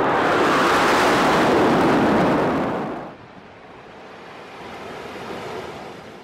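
Frecce Tricolori Aermacchi MB-339 jet formation roaring overhead in a flypast, a loud rushing jet noise. It drops away about three seconds in to a fainter rushing that swells slightly and fades out.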